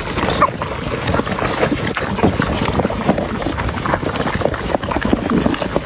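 A pack of dogs eating together from a metal trough: a dense, continuous clatter of many mouths chewing and smacking at once.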